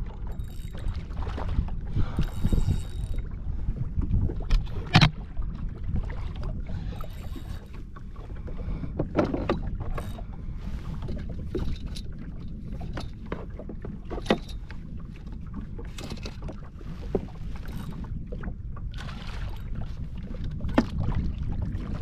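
Water rushing and lapping against the hull of a Sea-Doo FishPro personal watercraft riding at anchor in a strong current: a steady low rumble, broken by scattered short sharp clicks and knocks.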